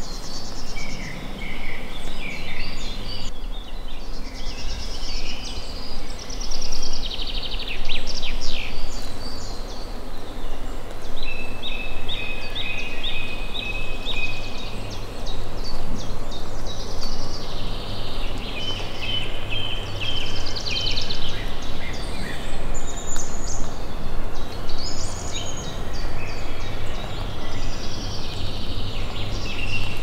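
Several songbirds singing at once: a chorus of overlapping chirps, rapid trills and runs of short repeated notes.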